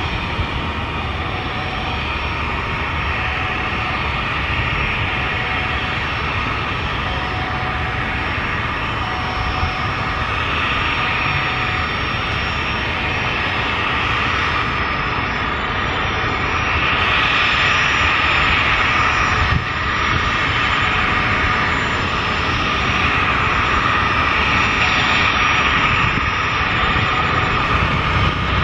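Twin-engine jet airliner's engines running at low taxi power as it taxis toward the listener, a steady jet whine and rumble that grows a little louder past the middle.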